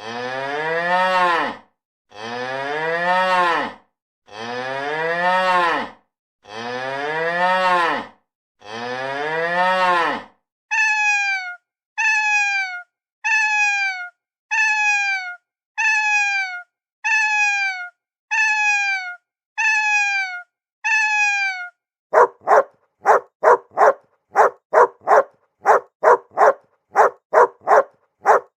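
A cow mooing five times in long, deep calls, then a cat meowing ten times in short calls that fall in pitch, then a dog barking in a quick run of barks, about two or three a second.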